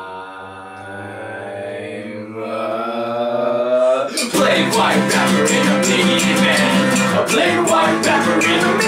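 A man's voice holds one long sung note that rises slowly in pitch. About four seconds in, a steadily strummed acoustic guitar and singing come in loudly, with a quick even beat of strokes.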